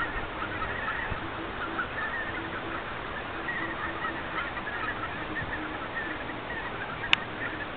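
A large flock of greater white-fronted geese and barnacle geese calling continuously: a dense chorus of many overlapping high honks. A single sharp click cuts through about seven seconds in.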